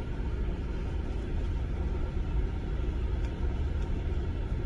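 Motor vehicle running on a rough back road, a steady low rumble with no change in pace.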